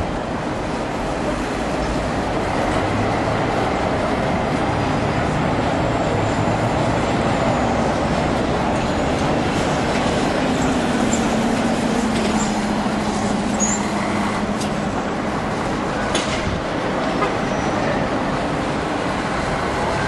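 Steady vehicle noise, with a low engine tone standing out for a few seconds around the middle.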